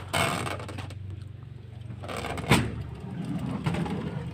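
Cardboard medicine boxes handled in a drawer: a short scraping rush near the start and a sharp knock about halfway through, over a low steady hum.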